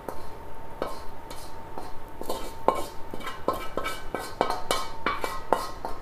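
Wooden spatula scraping and tapping against a wok and a bowl while fried rice is pushed out of the wok: a dozen or so irregular knocks and scrapes, some with a short ring.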